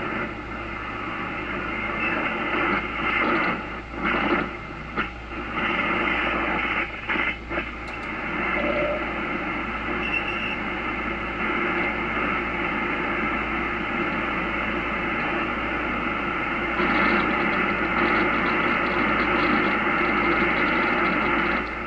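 Shortwave static and hiss from an Icom IC-746Pro transceiver's speaker as it is tuned across the 40-metre band in lower sideband, with a couple of brief whistles from carriers and a few dips as the dial moves. No stations come through: band conditions are really bad.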